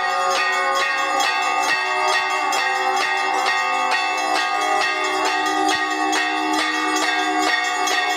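Brass temple bells rung rapidly and without a break for the aarti, struck about three times a second over a bed of overlapping ringing tones.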